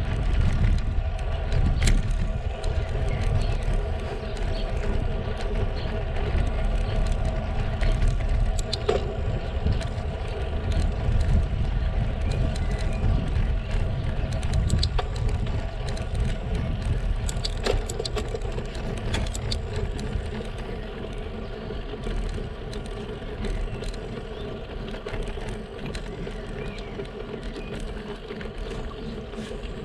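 Road bike climbing a steep lane, heard through a camera mounted on the bike: a steady low rumble of tyres on rough asphalt and road vibration, a steady mechanical hum, and a few sharp clicks and knocks from bumps and the bike.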